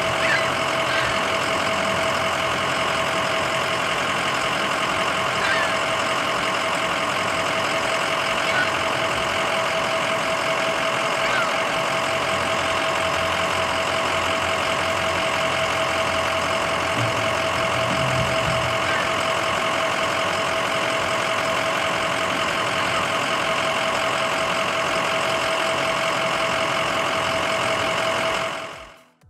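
Parked Ford E-Series ambulance idling: a steady engine and blower hum with a constant whine over it.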